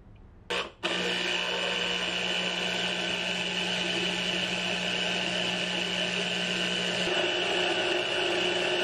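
達新牌 electric citrus juicer's motor spinning the reamer as a lime half is pressed down on the cone. It kicks in briefly about half a second in, then runs with a steady hum from about a second in.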